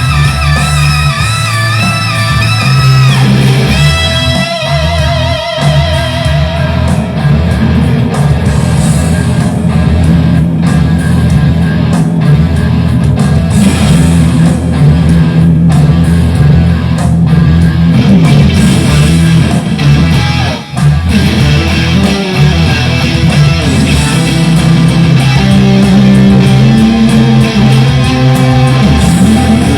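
Fender Stratocaster electric guitar played straight into a Boss Katana 100 amplifier. A couple of held notes with wide vibrato come in the first few seconds, then dense low riffing.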